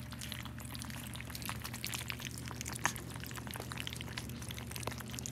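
A litter of four-week-old puppies lapping and slurping a runny blended puppy-food gruel from a tray: a busy, irregular patter of small wet smacks and clicks, one sharper smack a little before three seconds in.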